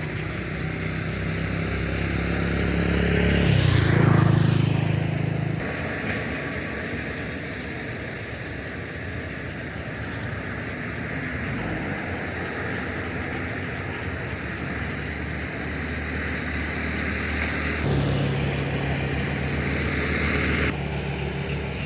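Road traffic noise with steady engine rumble, and a vehicle passing close by about four seconds in, rising and falling.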